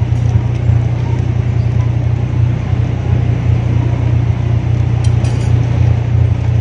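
Old car's engine idling through a newly fitted aftermarket racing muffler, giving a steady, smooth deep bass exhaust note.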